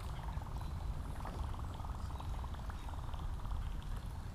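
Kayak being paddled: light water splashes and drips from the paddle strokes over a steady low rumble.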